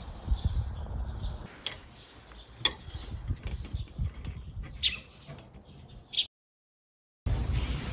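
Sharp metallic clicks and ticks from a screwdriver tightening the worm screw of a stainless steel band clamp. After a brief silence near the end, a steady rubbing noise begins.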